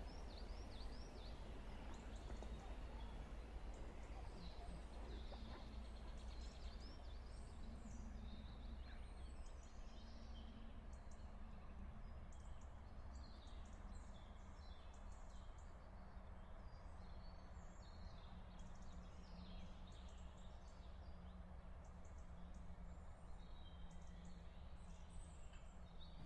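Small birds chirping and singing, many short high calls and trills, over a low steady rumble.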